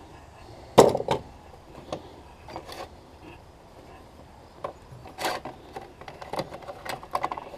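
Hand tools clinking and rattling in a steel toolbox tray as they are picked up and set down: a sharp clank just under a second in, scattered knocks, and a quick run of small clicks near the end.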